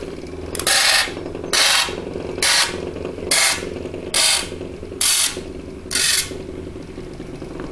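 Pencil point scratching on a spinning plywood disc, touched down seven times in short strokes a little under a second apart, as it marks concentric circles. Under it the electric fan's motor hums steadily.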